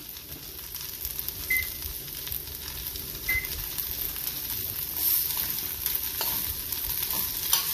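Corn frying in butter over high heat: a steady sizzle and crackle, with a few light clicks in the second half.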